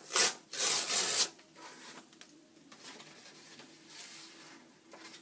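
A paper envelope being torn open: two quick rips in the first second or so, then quieter rustling of paper.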